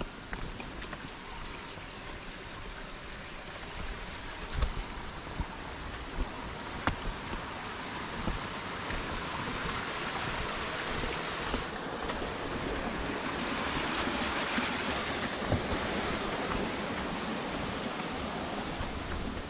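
A small stream running over rocks, a steady rushing that grows louder past the middle, with a few sharp taps in the first half.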